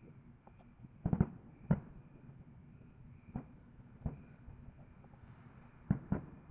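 Distant fireworks going off in irregular bangs, about seven in all, including a quick double about a second in and another pair near the end.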